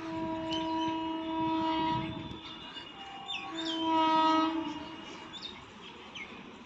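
Horn of an approaching WAP7 electric locomotive: a long blast, then a shorter one about a second later, with birds chirping.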